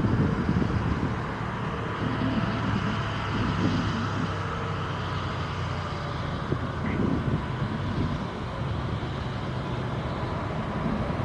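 Steady low jet engine rumble from an airliner at the airport, with wind buffeting the microphone.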